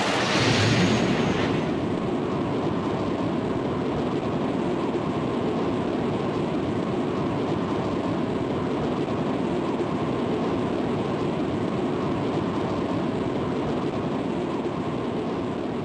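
Cartoon sound effect: a loud burst of noise in the first second and a half that settles into a long, steady rumble, easing slightly near the end.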